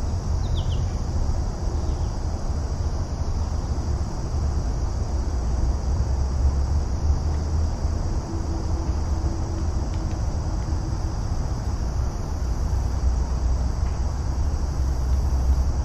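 Steady background noise with a low rumble and a continuous high hiss.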